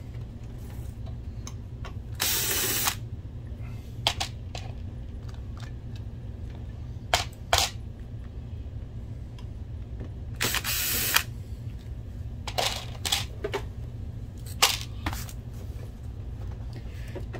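Hand screwdriver backing screws out of a plastic projector case: scattered clicks and taps, with two louder scratchy sounds of under a second each, about two seconds in and about ten and a half seconds in.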